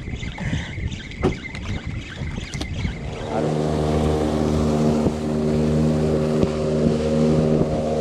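Small fishing boat's engine comes up to a steady run about three seconds in, with the boat underway and water splashing off the hull. Before that, a few clicks and knocks of fishing tackle being handled.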